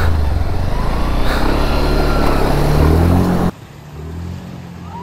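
Motorcycle engine running and revving up, its pitch rising about three seconds in, before the sound cuts off abruptly to a much quieter background.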